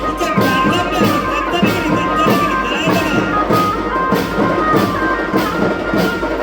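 Loud music with a steady drum beat about twice a second under a stepping high melody line.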